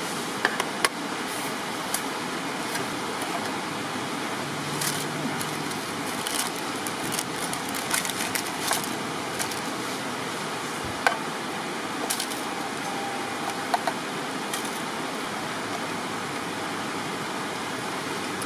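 Steady rushing outdoor noise with scattered sharp clicks and pops every second or two.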